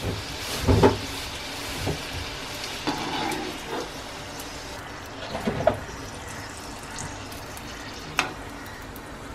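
Puris deep-frying in hot oil in a kadai: a steady sizzle, with a few brief clinks of a steel slotted spoon against the pan.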